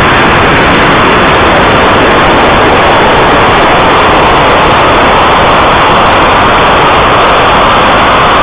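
Loud, steady rushing noise of air streaming past a small camera mounted on a model rocket in flight, the sound of the airframe moving at speed.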